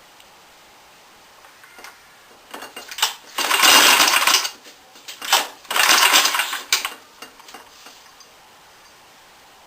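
Small go-kart engine being pull-started twice, each pull a rattling burst about a second long, the engine not catching.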